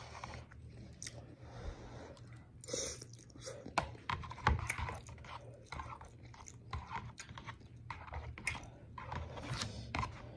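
Close-up chewing and mouth smacking of instant bowl noodles, with irregular wet clicks throughout, alongside a metal utensil scraping in a disposable noodle bowl.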